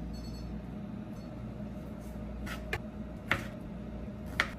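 A spoon and a knife clinking and tapping against a wooden cutting board and jar lid: four short clinks in the second half, the last the sharpest, over a steady low hum.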